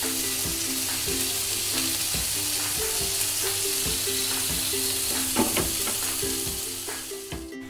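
Bottle gourd leaf parcels of prawn paste sizzling in oil in a frying pan over a raised gas flame: a steady hiss as the water released by the leaves boils off. The sizzle fades away near the end.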